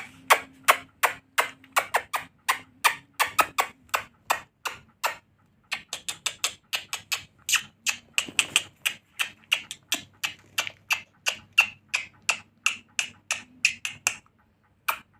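A pet lory making a fast, regular run of sharp clicks, about three to four a second, with a short pause about five seconds in.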